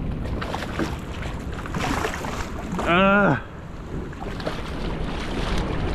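Strong wind buffeting the microphone over choppy sea water. About three seconds in comes a short, drawn-out vocal exclamation that rises and falls in pitch.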